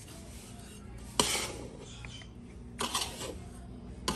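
A metal ladle scraping and knocking against a large iron karahi while stirring semolina and ghee as it roasts over low heat. There is a sharp clank about a second in, a few more near three seconds, and another at the end.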